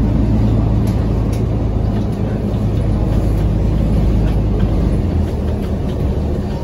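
Mercedes-Benz Citaro city bus driving, heard from inside the passenger cabin: a steady low engine drone over road noise. The drone drops in pitch about five seconds in.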